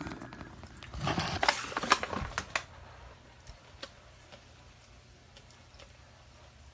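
Rhino iguana biting and chewing grapes: a burst of wet crunching and clicks about a second in, then a few faint ticks.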